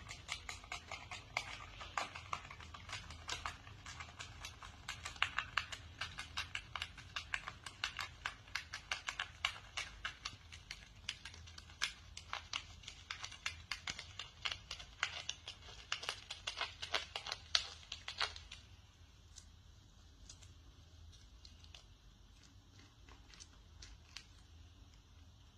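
Rapid, irregular sharp clicks or taps, a few a second, that stop about eighteen seconds in, leaving only a few faint scattered clicks.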